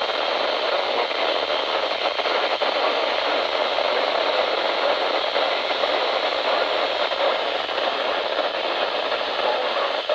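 Steady hiss of radio static from a receiver, with no program audio.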